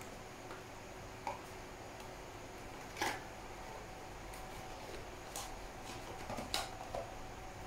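A few light clicks and taps from a cardboard box being handled and set down, the loudest about three seconds in, over a faint steady hum.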